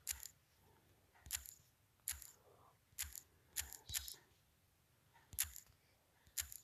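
Typing on a smartphone's on-screen keyboard: about eight sharp, faint key taps at irregular spacing, a few tenths of a second to about a second and a half apart.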